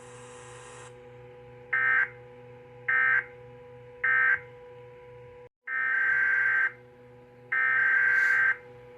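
NOAA Weather Radio SAME digital data bursts, harsh buzzy chirps. First come three short end-of-message bursts about a second apart. After a brief dropout, two longer header bursts begin the next alert, all over a steady low hum.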